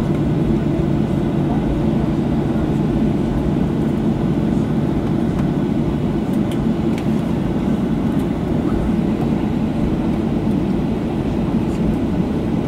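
Steady cabin noise inside a Boeing 737-800 taxiing just after landing: a low rumble from its CFM56-7B engines and the wheels rolling on the taxiway.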